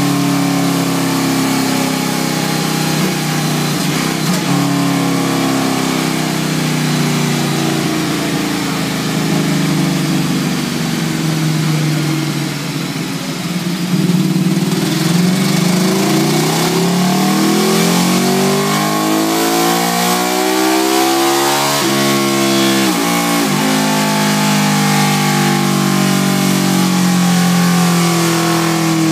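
Ducati Streetfighter 848's L-twin engine running on a rolling-road dyno through a Termignoni exhaust. About halfway through, the revs climb steadily for several seconds, then drop sharply and come back up.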